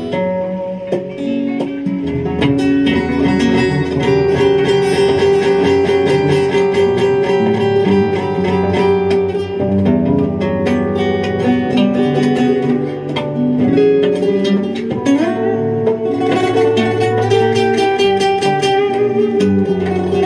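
Two acoustic guitars and an electric guitar jamming together in flamenco style in the Phrygian mode, with picked lines over sustained chords and a sliding rise in pitch about fifteen seconds in.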